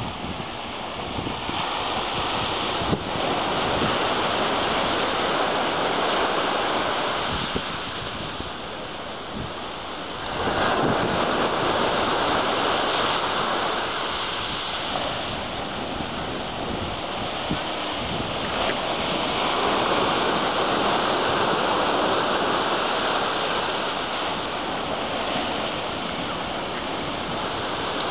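Ocean surf breaking and washing against the shore, swelling and easing in long surges every several seconds.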